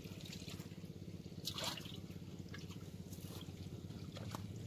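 Water splashing and dripping as hands work through a netful of small live fish in shallow water, with one louder splash about a second and a half in and a few small clicks later, over a steady low rumble.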